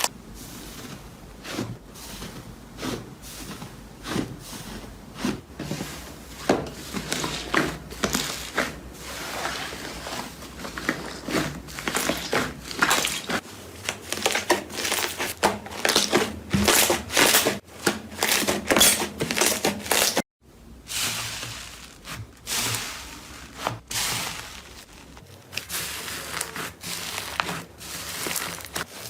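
Slime being squeezed and pressed by hand, making dense, irregular crackling and crunching sounds, with a brief break about two-thirds of the way through.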